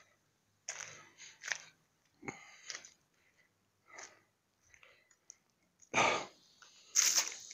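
A person breathing hard close to the microphone in separate, irregular puffs, the two loudest near the end.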